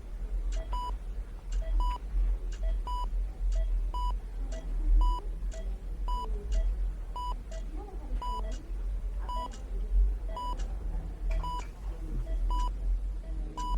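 Hospital heart monitor beeping, a short, even tone about twice a second, over a steady low hum and a faint background murmur of room ambience.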